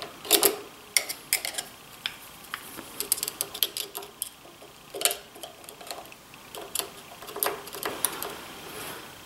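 Steel pick and screwdriver tips clicking and scraping against a snap ring on a steel shaft of a DeWalt 735 planer's chain drive as it is pried off: irregular small metallic ticks and taps, with a quick run of them about three seconds in and a few sharper knocks later.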